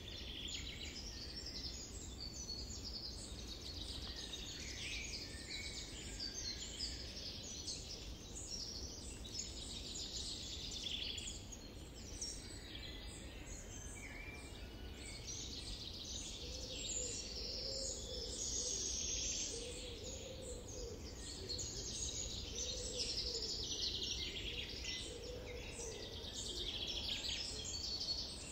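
Many small birds chirping and singing at once, a dense continuous chorus of short high calls over a steady low background hiss.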